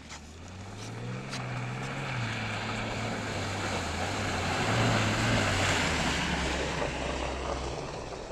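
Ineos Grenadier 4x4 driving through a muddy, waterlogged track: the engine pulls with its pitch rising and falling while the tyres splash and hiss through mud and water. It grows louder as it passes close by, then fades near the end.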